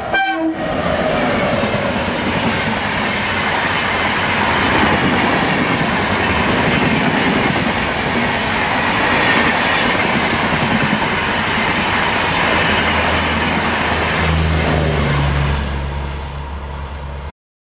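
Shatabdi Express passenger train behind a WAP-7 electric locomotive passing at speed: the end of its horn in the first half second, then a loud, steady rush and rumble of wheels on rail as the coaches go by. A low hum comes in near the end as the rear generator car passes, and the sound cuts off suddenly.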